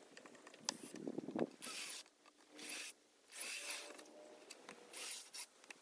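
Four short scraping strokes with light clicks and knocks in between, from hand work on a wooden timber on the ground.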